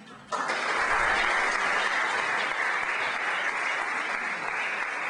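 Audience applauding, starting suddenly a moment in and holding steady.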